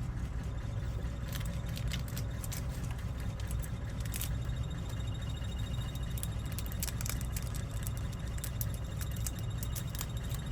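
Small plastic clicks and ticks from a key fob's opened shell and button pad being handled, over a steady low hum.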